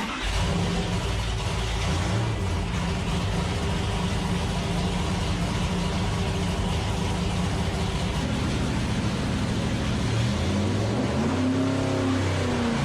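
1970 Dodge Charger's engine running steadily, then revved up and back down several times over the last few seconds.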